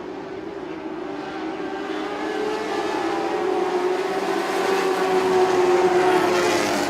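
A field of mini sprint cars' 1200cc engines running at high revs in a high, even whine, growing steadily louder as the cars come nearer.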